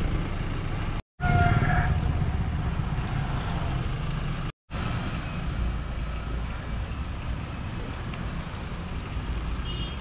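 Road traffic on a rural road: the steady low rumble of nearby car engines and tyres. It cuts out to silence briefly about a second in and again about halfway through.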